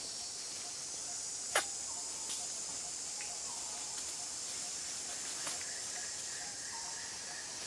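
Steady, high-pitched drone of insects, with one sharp click about one and a half seconds in.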